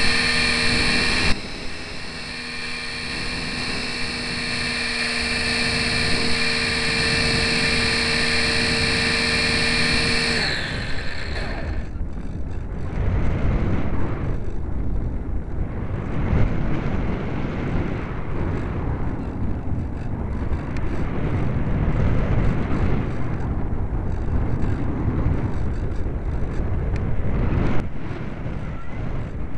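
Electric motor and propeller of a GWS Slow Stick RC plane whining steadily, picked up by a camera on board. About ten seconds in the motor winds down and stops, leaving only the rush of wind over the plane and the microphone.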